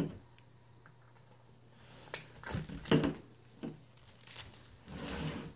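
Plastic shrink-wrap crinkling and tearing in short scratchy bursts as it is peeled off a boxed book set, starting about two seconds in. A single thump at the very start.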